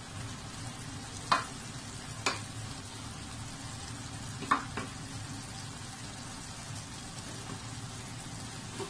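Wooden spatula stirring chicken pie filling of minced chicken, diced carrots and potatoes in a stainless steel pot, over a steady low sizzle from the pan, with four sharp knocks of the spatula against the pot in the first five seconds.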